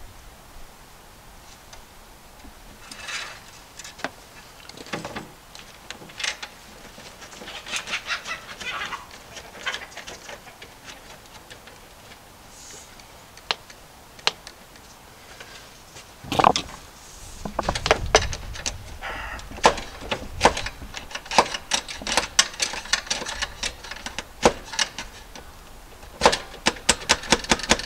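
Clicking, scraping and knocking of a lock nut being threaded onto a PVC male adapter and tightened against a breaker panel's knockout. Scattered scrapes at first, then many sharp metallic clicks from about halfway, in quick runs near the end.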